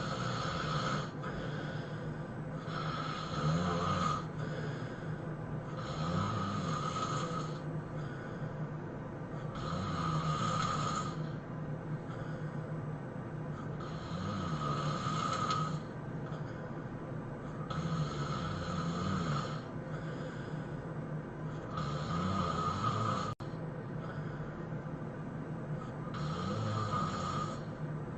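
A person snoring heavily in deep sleep: long, loud snores repeating about every four seconds, around eight in all, with a momentary cut-out of the sound late on.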